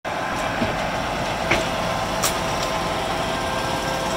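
Freightliner boom truck's diesel engine running steadily, powering the Effer knuckle-boom crane as it moves a pallet of shingles. A steady high whine sits over the engine, and a few short sharp clicks or knocks come through.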